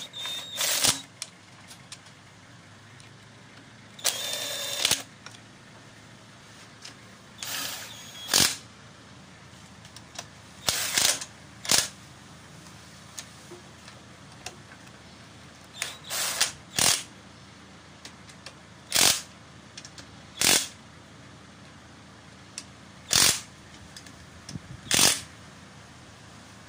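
Socket wrench turning bolts on a Nissan MR18 engine block. It goes in about a dozen short bursts of ratcheting a few seconds apart, with one longer run about four seconds in.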